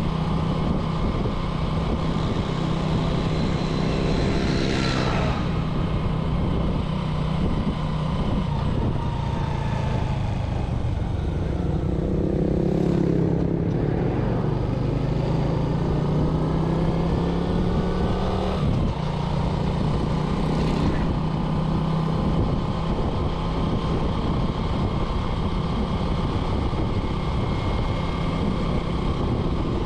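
Small motorcycle engine running steadily while riding, with wind noise. About halfway through the engine note drops briefly and then picks up again, as when easing off and accelerating. A few short whooshes are heard along the way.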